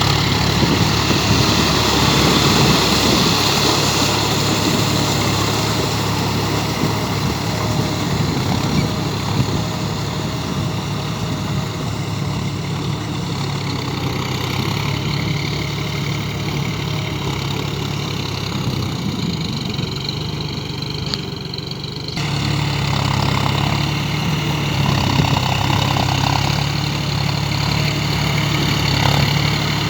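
John Deere tractor's diesel engine running steadily while pulling a plough through the field. About two-thirds of the way through, the engine note changes suddenly and becomes a little louder.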